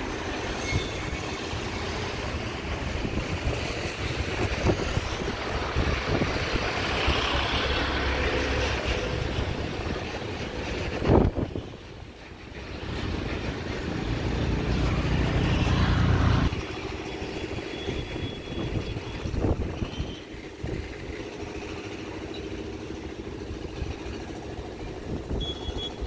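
Steady outdoor rumble of vehicle noise with hiss, heavy in the low end, with a sharp knock about eleven seconds in and an abrupt drop in the rumble about sixteen seconds in.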